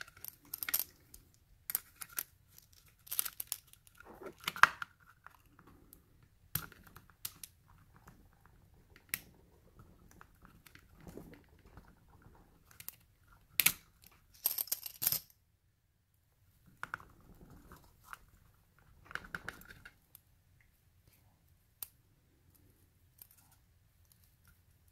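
Small metal lock parts being handled while a pin-tumbler lock cylinder is gutted: scattered sharp clicks and brief scrapes as the plug is worked out with a follower and a pick, pins kept in place.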